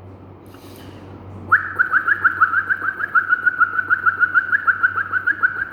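A man imitating the call of the common tailorbird: a fast, even string of short high chirps, about six a second, starting about one and a half seconds in.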